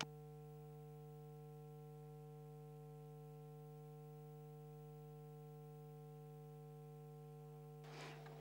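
Near silence: a faint, steady hum made of several held tones that do not change. It starts abruptly and the higher tones fade out about eight seconds in.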